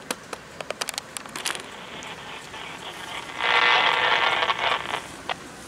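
Horn of an approaching Norfolk Southern diesel locomotive sounding one blast of about a second and a half, a chord of several steady tones, about halfway through. A few light clicks come in the first second and a half before it.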